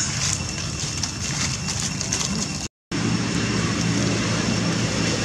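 Steady low drone of a running motor with a noisy hiss over it, broken by a moment of dead silence a little past halfway, after which the hum comes back a little stronger.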